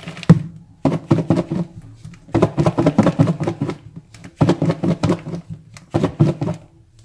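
Small goby fish and frying flour thudding and rattling inside a closed plastic food container shaken by hand to coat the fish in flour. A sharp thump just after the start, then four quick bouts of shaking about a second each with short pauses between.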